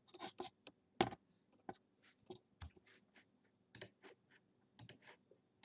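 Faint, irregular clicks and taps of a computer mouse and keyboard, a dozen or so, with the loudest about a second in.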